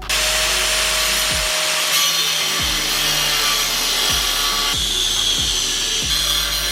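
Angle grinder grinding steel on the truck's frame, a steady loud hiss with a high whine, shaving the old mounts flush with the frame rail. Background music with a steady bass beat underneath.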